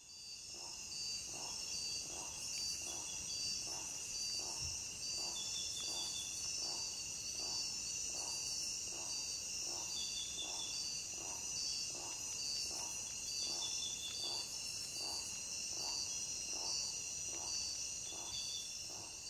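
Crickets chirping in a steady high-pitched chorus, with a lower pulsing sound repeating a little more than once a second beneath it.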